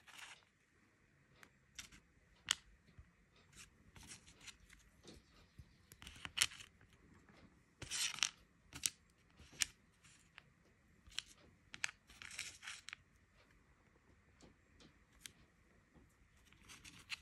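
Small circuit boards and a blue plastic frame handled and set down on a work surface: scattered light clicks and taps, with a few short scraping rustles around six, eight and twelve seconds in.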